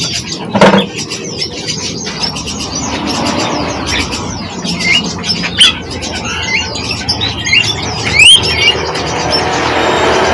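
Many small songbirds chirping at once, a dense chatter of short overlapping calls and quick rising whistled notes. A brief, louder, lower-pitched sound comes about half a second in, and a loud upward-sweeping whistle just after eight seconds.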